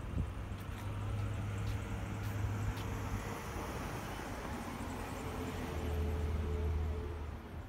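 Low engine hum of motor traffic passing on a road, swelling twice.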